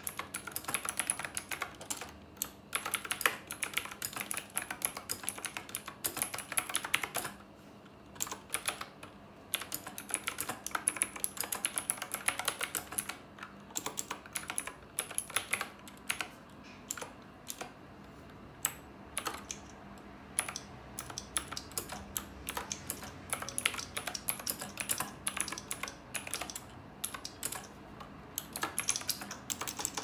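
Continuous typing on a Knewkey Rymek typewriter-style mechanical keyboard: a dense stream of key clicks, with a short pause about eight seconds in.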